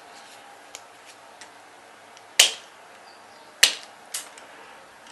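Two loud, sharp clicks about a second apart, then a softer third, with faint ticks between: hand work on copper house wiring and its connectors.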